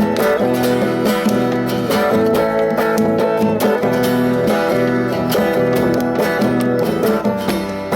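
Instrumental music with a guitar playing.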